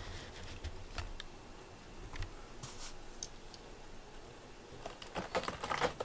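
A cat moving about, with light taps and rustles of its paws. Near the end comes a quick run of scratchy clicks as it steps onto a cardboard scratcher.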